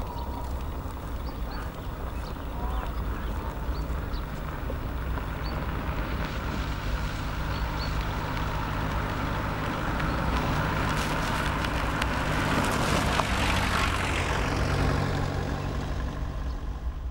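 A motor vehicle's engine running with a steady low hum that grows louder and peaks after about twelve seconds, then eases off. Faint high chirps, like small birds, sound in the first few seconds.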